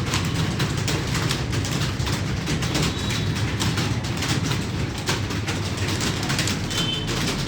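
Many computer keyboards clattering at once as a room of typists types at speed, a dense, irregular patter of key clicks over a steady low hum.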